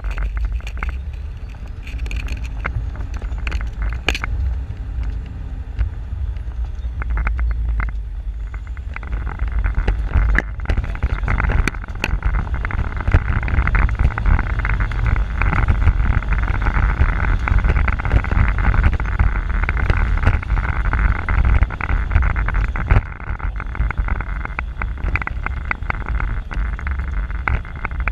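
An off-road 4x4's engine running as it drives over a rough dirt track, with knocks and rattles from the bumps. The engine works harder from about nine seconds in while climbing a steep dirt slope, and eases off a couple of seconds before the end.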